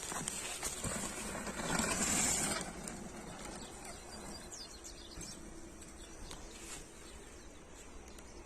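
A downhill mountain bike rushing past on a dirt trail, its tyres loudest about two seconds in and then quickly gone. A few bird chirps follow.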